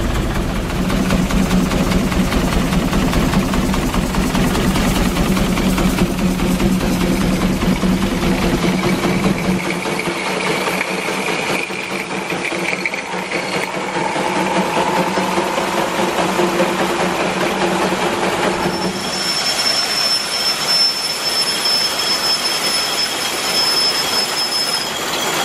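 A steam-powered threshing rig running steadily: a 1915 steam traction engine driving a 1911 Case grain separator by flat belt while it threshes oats. A deep, even running sound fills the first third. In the last quarter a steady high whine rises over the machinery's rattle.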